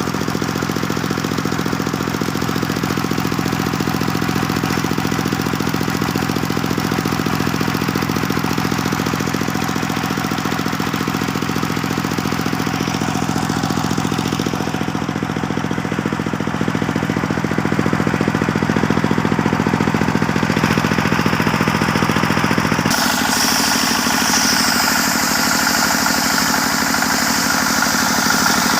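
Circular sawmill running steadily with a constant mechanical hum. Near the end the sound shifts: the low hum thins out and a higher whine comes in.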